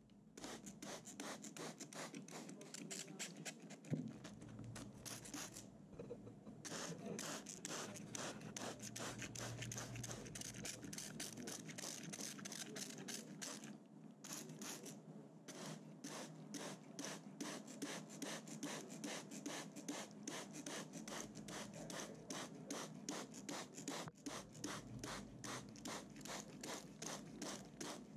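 Hand trigger spray bottle misting soil in a plastic tray: quick repeated squirts, about three a second, with a few short pauses.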